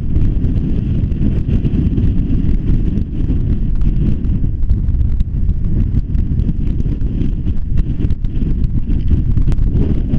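Strong wind buffeting the camera microphone: a loud, gusting low rumble that never lets up.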